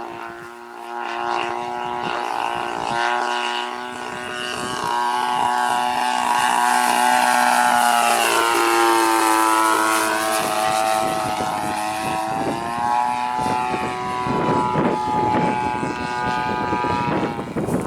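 EVO 30cc gas two-stroke engine and propeller of a Seagull Models RV-8 radio-control airplane in flight, a steady drone that swells and shifts in pitch, dipping and climbing again around the middle as the plane passes and turns.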